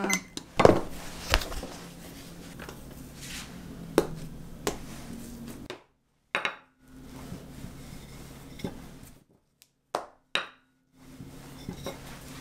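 Scattered knocks and taps of kitchen things being handled on a worktable: a plastic-cased kitchen timer and plastic dough boxes, later a wooden rolling pin on dough on a silicone mat. The loudest knock is about half a second in, and the sound drops out completely a few times for a moment.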